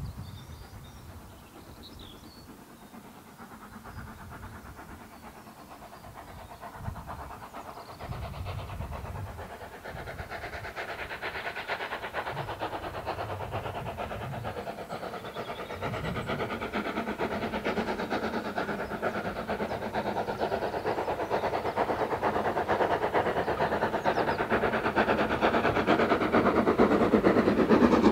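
LSWR S15 4-6-0 steam locomotive No. 506, a two-cylinder engine, working steam as it approaches. Its rapid exhaust beat starts faint and grows steadily louder to the end as the engine draws near.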